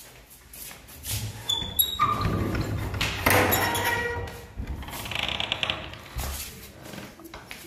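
A door being shut and locked by hand: knocks, metallic clicks and rattles of the latch, lock and key, with a brief ringing of metal about two seconds in and a quick rattle near the middle, over camera-handling rustle.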